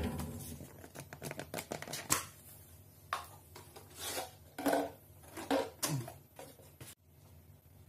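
Hands handling a plastic RC car body: a string of short clicks, taps and scrapes, stopping abruptly near the end.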